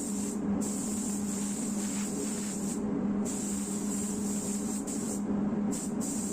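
Pneumatic paint spray gun hissing as it sprays, the air cutting off briefly between passes about half a second in, around three seconds in and around five and a half seconds in, over a steady low hum.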